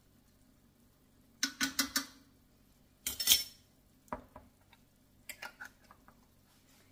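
A metal spoon clinking and tapping against a stainless steel sauté pan and a jar, in short bursts: a quick run of taps about one and a half seconds in, a louder clatter about three seconds in, then a few lighter clicks.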